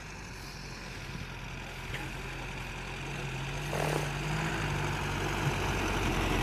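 A motor vehicle's engine running steadily, growing louder as it comes closer.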